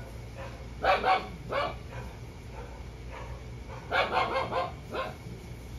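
Puppy barking: a few short, sharp barks about a second in, then another quick cluster about four seconds in.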